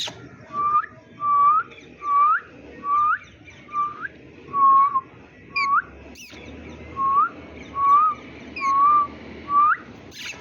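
An Indian ringneck parakeet whistles a string of about eleven short, clear notes. Each note holds one pitch, then flicks sharply upward at the end, at a steady pace of about one a second, with a short break around the middle.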